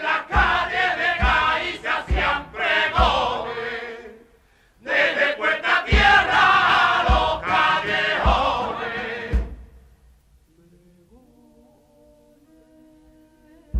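A male Cádiz carnival chorus singing loudly in unison over a drum beating about once a second, in two phrases with a short break between them. After about ten seconds a quieter passage of held instrumental notes follows.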